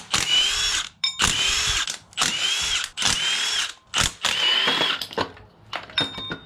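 A cordless power tool spinning out the 10 mm bolts that hold an LS engine's water pump on, in about five short bursts, its motor whine rising and falling in pitch with each burst.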